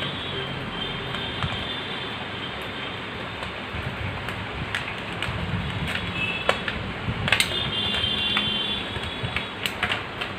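Earphone packaging being opened and handled by hand: irregular clicks and crackles, sharper and more frequent in the second half.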